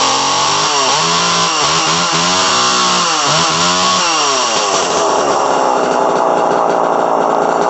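Homelite Super EZ Automatic two-stroke chainsaw running. Its engine speed dips and rises several times in the first half, then is held steady at high revs. The owner thinks it could use a new spark plug or maybe a carburetor adjustment.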